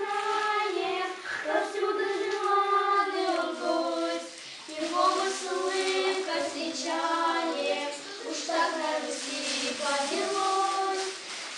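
A small group of children singing a song together in unison, with long held notes.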